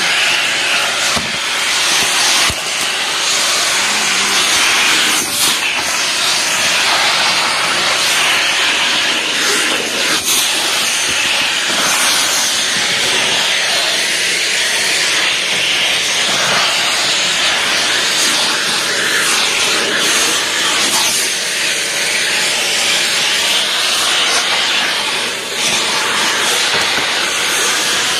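Vacuum cleaner running steadily, its nozzle sucking up litter and dirt from a concrete floor: a constant rushing hiss with a faint motor hum and occasional small clicks.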